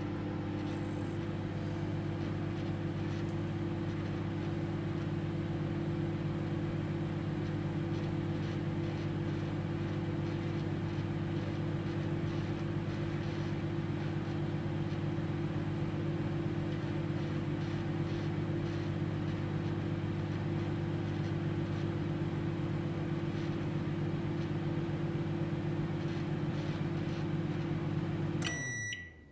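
Microwave oven running: a steady low hum that stops about a second before the end, when the end-of-cycle beeps begin.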